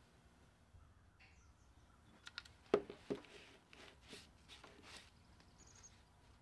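A few light knocks and clicks from a metal baking tray being handled, the loudest two close together about halfway through, followed by a brief high tone near the end.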